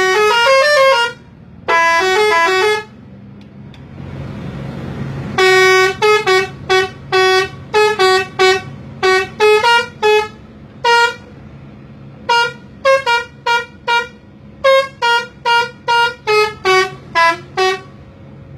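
A bus's 'telolet' musical multi-tone horn. It plays quick runs of changing notes at the start and again about two seconds in. From about five seconds in comes a long string of short toots, about two a second, over a steady low engine hum.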